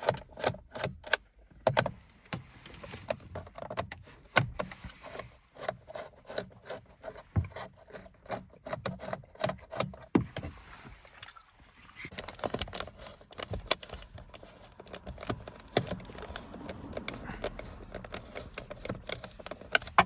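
Irregular metallic clicks, taps and light rattling from a hand tool with a T30 Torx bit working the two bolts at the back of the rev counter, with a little scraping of plastic trim in between.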